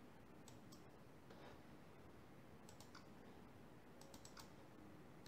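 Faint clicks of a computer mouse button over near silence: a few scattered clicks, some in quick pairs, as folders are selected and opened.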